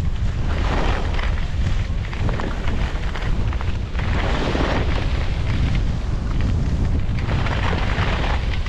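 Wind buffeting the microphone as a constant low rumble, while skis scrape and hiss across the snow in three swells, about one every three seconds as the skier turns.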